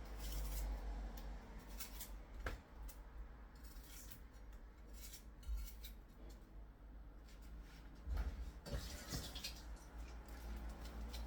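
Kitchen handling sounds: dishes, containers and utensils clinking and knocking now and then as ingredients are set out, with scattered short clicks.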